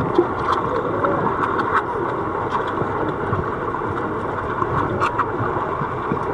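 Pool water heard through a camera's microphone held underwater: a steady, muffled rushing and churning noise with a few small clicks and crackles.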